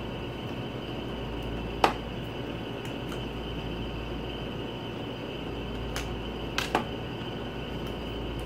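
Plastic lipstick cases handled and opened: a sharp click about two seconds in and a few lighter clicks between six and seven seconds, over a steady room hiss.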